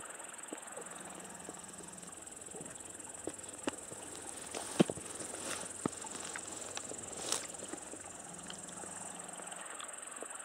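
Steady high-pitched chirring of insects in summer grass, with a scatter of sharp clicks and rustles in the middle.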